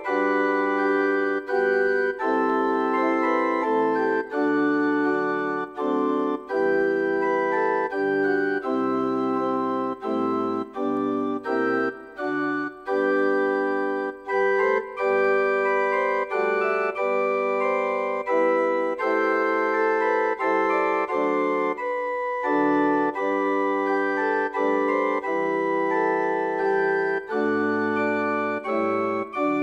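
Church organ playing a hymn tune in sustained chords, with brief breaks between phrases.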